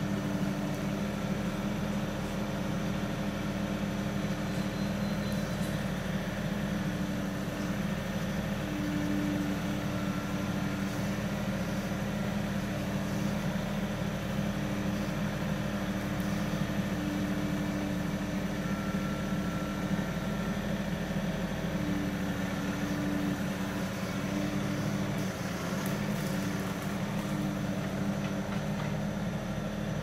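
Kioti NX6010 compact tractor's diesel engine running steadily as the tractor crawls over a rocky creek bed.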